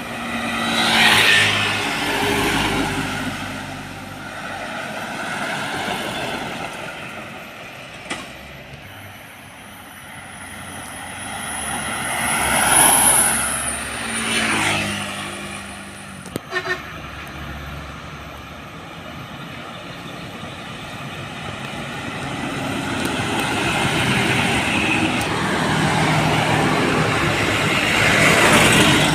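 Road traffic of heavy trucks and other vehicles passing close by one after another, each engine and tyre noise swelling and fading. The loudest passes come about a second in, twice around the middle, and near the end.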